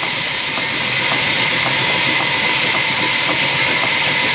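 Sawmill saw cutting lengthwise through a log: a loud, steady hissing whine with faint regular ticks, growing a little louder about a second in.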